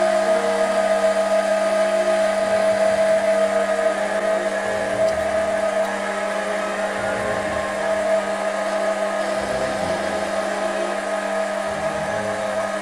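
Foreman TB1835 mini lathe running steadily, its spindle motor and gears giving a constant whine while the tool takes a cut on a metal rod.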